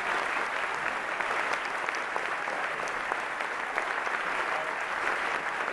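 A theatre audience and the cast on stage applauding steadily, a dense crowd of clapping hands.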